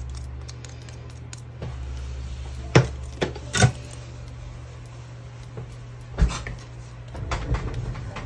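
Small hard objects, such as a paint tool and a plastic palette, clicking and knocking as they are handled and set down on a work table. The clicks come in a short cluster about three seconds in, a single louder knock a little after six seconds, and another cluster near the end, over a steady low hum.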